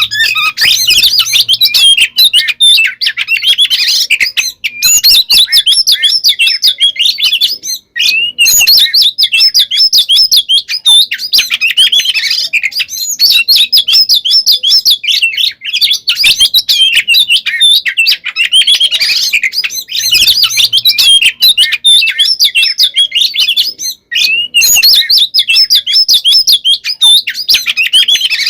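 Oriental magpie-robin (kacer) singing its loud, non-stop fighting song: a fast, varied run of whistles and chatter that breaks off only briefly three or four times. Keepers use this kind of song to provoke other magpie-robins into singing back.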